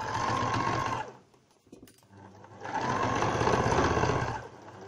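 Electric domestic sewing machine stitching in two short runs, about a second at the start and nearly two seconds in the middle, the needle going in a fast, even rhythm over a motor hum. The machine stops between the runs while the seam is leaving a turning gap.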